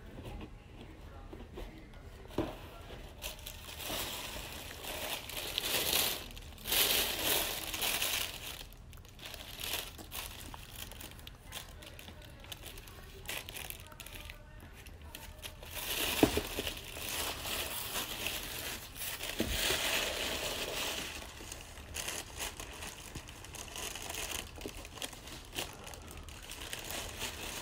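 Tissue paper rustling and crinkling in a shoebox as a leather ankle boot is lifted out and handled, in irregular bursts, loudest for a few seconds early on and again a little past halfway. A sharp knock a little past halfway stands out.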